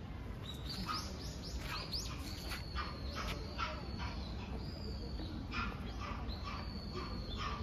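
Newborn giant panda cubs squealing: a quick series of high-pitched squeaks and rising chirps, some held briefly, over a low steady hum.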